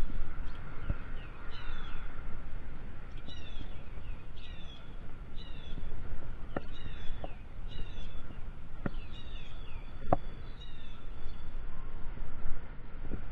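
Mountain bike being ridden on tarmac: steady rumble of tyres and wind on the microphone, with a few sharp knocks from the bike over bumps between about six and ten seconds in. A short falling chirp repeats roughly once a second throughout.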